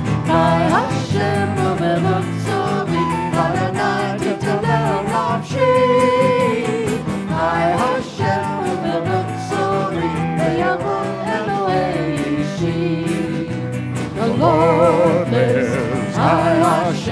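Live worship band music, a Messianic song with guitar and singing, playing steadily as a musical lead-in.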